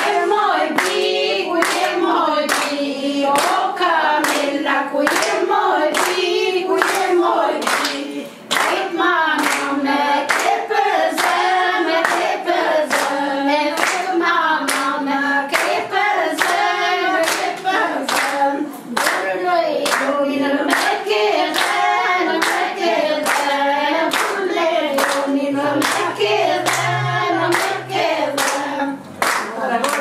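A group of women singing a traditional Albanian wedding song together, keeping time with steady hand clapping at about two claps a second.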